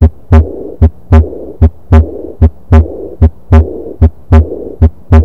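Recorded heart sounds heard through a stethoscope: a regular lub-dub, each pair of beats about a third of a second apart, at roughly 75 beats a minute. A steady whooshing heart murmur fills the gaps between the beats.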